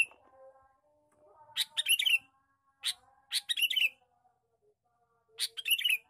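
Male sooty-headed bulbul (kutilang) calling in a few short bursts of quick, bright chattering notes with pauses between them.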